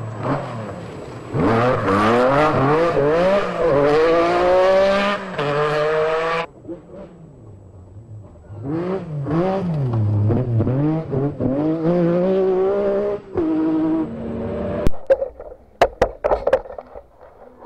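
MG Metro 6R4 Group B rally car's 3.0 V6 engine at full throttle, its revs climbing and dropping as it shifts gear, cutting off abruptly partway through. Near the end come a few sharp knocks.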